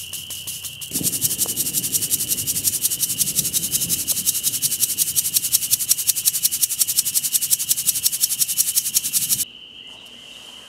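Tire balancing beads rattling in a plastic squeeze bottle, shaken rapidly and evenly like a salt shaker to feed them through a tube into a small trailer tire's valve stem; the rattling starts about a second in and stops abruptly near the end. A steady high insect trill runs underneath.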